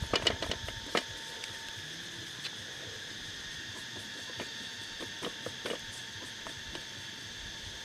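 Steady high chirring of insects, with a cluster of sharp clicks in the first second and a few more about halfway through: a spoon knocking and scraping in a pan set over a wood fire.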